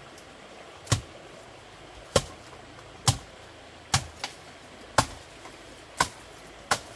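Seven sharp, separate strikes, about one a second, over a faint steady background.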